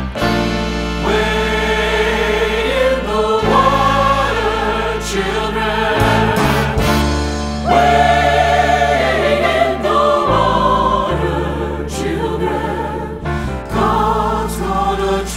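Three-part mixed choir (soprano, alto, baritone) singing a slow, freely paced gospel spiritual over held low piano chords.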